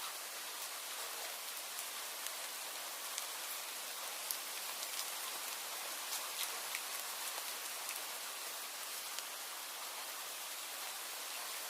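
Steady rain falling, an even hiss with many close individual drops ticking on a surface.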